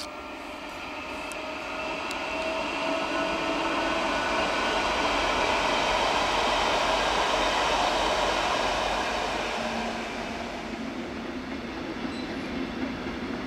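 Stadler KISS double-deck electric multiple unit passing at speed: its rolling noise, with a faint whine, builds to a peak about halfway through and then fades. Near the end a steadier, lower rumble from a freight train takes over.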